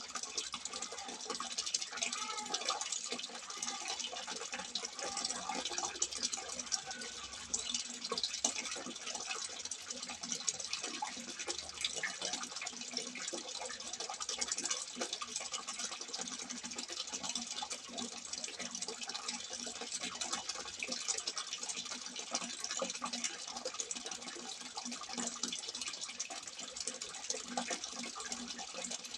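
Water pouring and splashing steadily from a simple spout, with a bubbling gurgle under a constant hiss of falling water.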